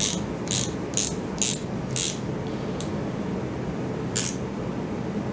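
An 8 mm wrench clicking as it tightens the nut that holds the drive gear on a 2205 motor's 5 mm shaft: sharp short clicks about two a second, then two more spaced-out clicks before stopping.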